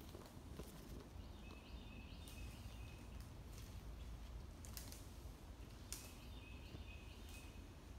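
Quiet woodland ambience in which a bird twice gives a run of short, evenly spaced high notes, a second or so each, with a few faint clicks scattered between.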